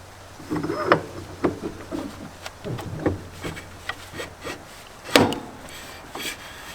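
Metal brake drum being worked back onto a John Deere garden tractor's rear axle over the brake shoes: scraping and a run of light knocks and clunks as the pads are wiggled into place, with one louder clank about five seconds in.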